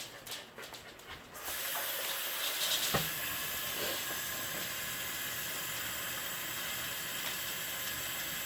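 Water running from a tap, starting suddenly about a second and a half in and then running steadily, with a single knock about three seconds in.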